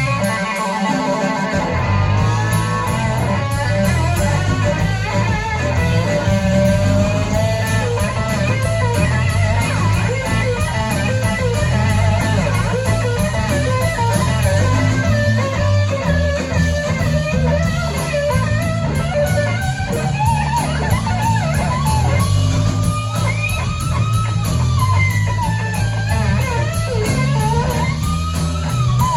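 Live blues-rock band playing an instrumental break: an electric lead guitar solos with bent, gliding notes over bass guitar and a steady drum beat.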